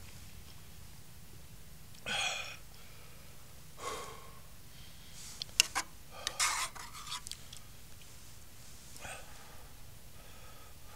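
A person eating: a few short breathy puffs of air between bites, with a few small sharp clicks near the middle.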